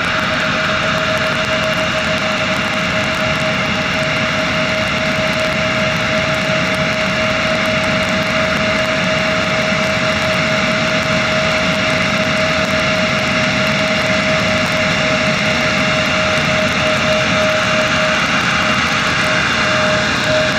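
Fuji Dream Airlines Embraer regional jet's twin turbofan engines at taxi idle as the jet taxis. A steady engine whine holds one constant tone, with a hiss and low rumble beneath it.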